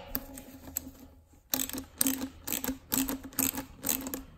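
Ratchet with a 10 mm socket clicking in short quick strokes as it tightens a T-bolt clamp on a silicone charge-pipe coupler. The run of clicks starts about a second and a half in.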